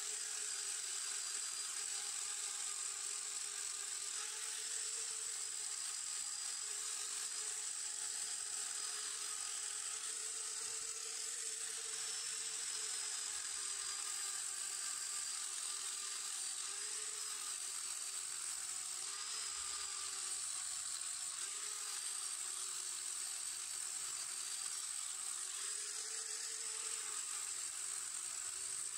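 Angle grinder with a sanding disc running steadily against rusty steel moped parts to strip the rust. It gives a continuous high whine whose pitch wavers a little as the disc is pressed on and moved over the metal.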